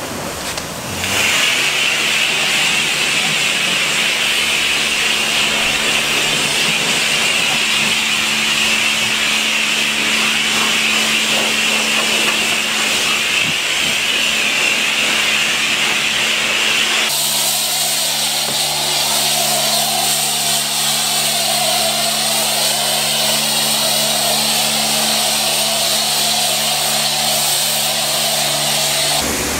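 High-pressure wand of a self-service car wash spraying pre-wash soapy foam onto a car: a loud, steady hiss of spray with a low pump hum under it, starting about a second in. About halfway through the sound changes abruptly, and the hiss takes on a lower, wavering tone.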